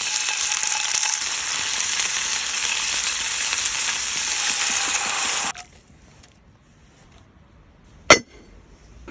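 Mackerel sizzling loudly as it cooks, a steady high hiss that cuts off suddenly about five and a half seconds in. A single sharp click follows near the end.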